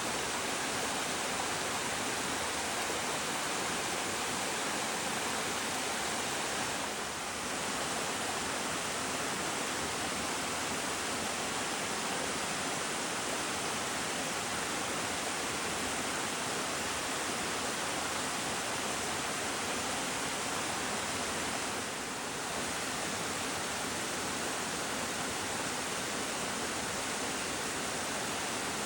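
Small waterfall cascading down several tiers: steady rushing and splashing water, with two brief slight dips in level.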